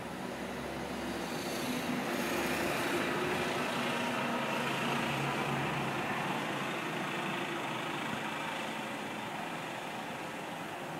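A road vehicle passing by: engine and tyre noise swells over the first couple of seconds, with a low engine hum in it, then slowly fades away.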